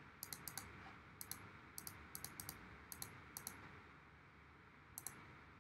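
Faint, irregular clicking of a computer mouse and keys: a dozen or so short clicks, some in quick pairs, then a pause of over a second before one last click near the end.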